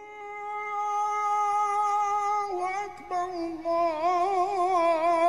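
Background music: a solo voice singing long held notes, the first steady and the next lower with a wide vibrato.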